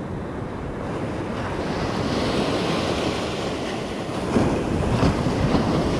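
Ocean surf breaking and washing up the beach, with wind rumbling on the microphone. The wash swells from about a second in and is loudest near the end.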